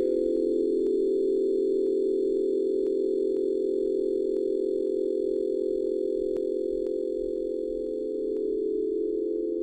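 A steady drone of several held pure tones, layered into one unchanging chord, for sound-healing meditation. Faint sharp ticks come about twice a second.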